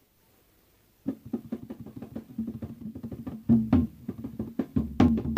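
Balinese gong gede gamelan starting a piece. After about a second of quiet, a quick run of sharp struck notes rings over a low sustained pitch, with heavier strokes past the middle, and grows louder and denser near the end.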